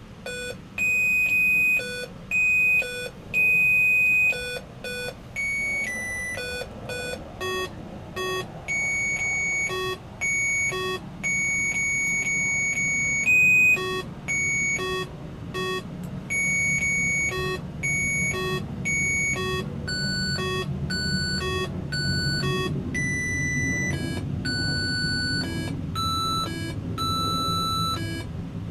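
An Arduino Mega playing an RTTTL ringtone melody as a string of electronic beeps, one note at a time, some short and some held. A low rumble builds under the notes in the second half.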